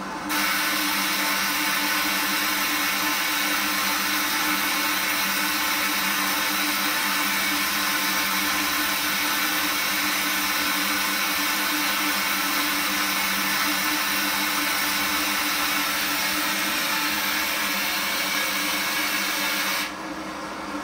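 Komeco water heater making a loud, steady rushing noise over a low hum: the noise starts abruptly just after the beginning and cuts off about 20 seconds in. This is the strange noise the owner is asking about.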